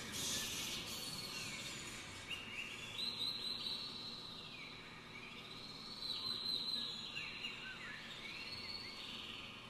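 Wind orchestra in a quiet passage of nature effects: high sliding, bird-like calls rise and fall roughly every three seconds over a soft hiss.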